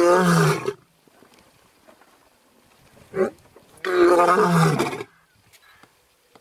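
Lion roaring: the end of one long roar in the first second, then a short grunt and a second long roar about four to five seconds in, each roar dropping in pitch at its close.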